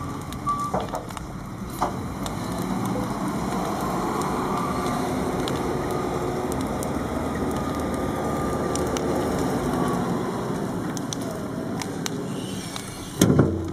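JCB telehandler's diesel engine running as the machine drives across the field, over the crackling of a large brush bonfire. A loud thump near the end.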